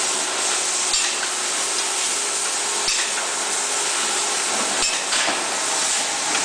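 Tea bag packing machine (thread-and-tag inner and outer bag type) running: a steady hiss with sharp mechanical clicks every second or two.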